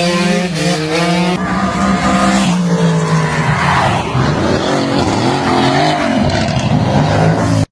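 Engines revving hard, rising and falling in pitch, with tyres squealing as cars launch and do burnouts. The sound changes abruptly about a second and a half in, where one clip cuts to the next.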